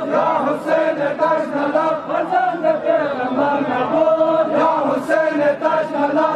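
A crowd of men chanting a Farsi noha, a Shia mourning lament for Ashura, many voices together in a steady, continuous chant.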